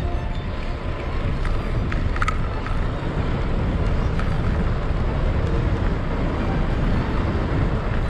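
Wind rushing over the microphone and tyre noise on asphalt as a bicycle coasts downhill at speed, picking up from about 22 to 30 mph.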